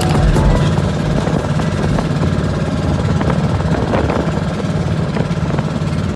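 Engine running steadily and loudly, with a low hum and a constant rattle.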